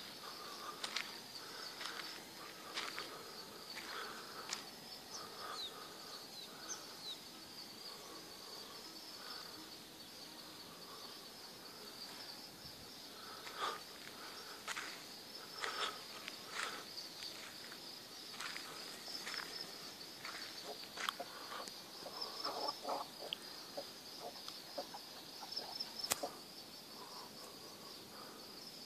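A roost of cattle egrets: many short, harsh calls, thickest in clusters toward the end, over a steady high-pitched chirring.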